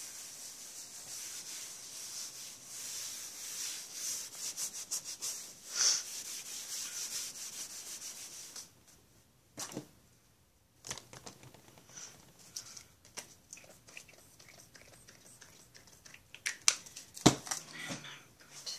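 A crumpled white wipe rubbed back and forth across a plastic cutting mat, a steady scrubbing hiss. It stops about nine seconds in, and after a short pause comes lighter rubbing with scattered sharp clicks and taps near the end.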